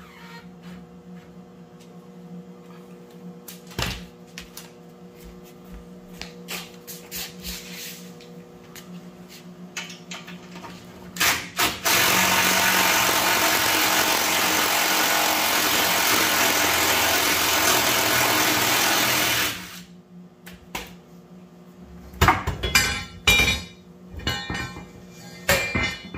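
Cordless impact wrench hammering steadily for about eight seconds, starting about twelve seconds in, run on the sway bar mounting bolt to break it loose. Scattered tool clicks come before it, and a cluster of sharp metal knocks near the end.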